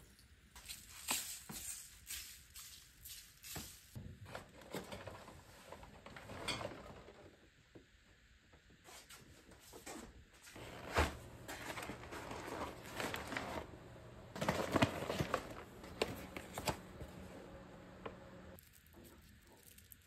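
Kitchen handling sounds: clinks, knocks and rustling of pots and utensils. A low steady hum starts about halfway through and runs for roughly eight seconds, with more clatter over it.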